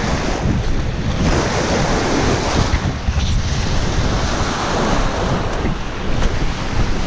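Small river waves washing and breaking onto a rocky pebble shore, surging and easing, with wind buffeting the microphone in a low rumble.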